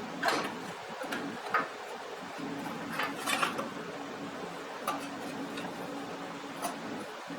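Light metallic clinks and clatter, several irregular strikes, as metal parts or tools are handled, over a steady low hum.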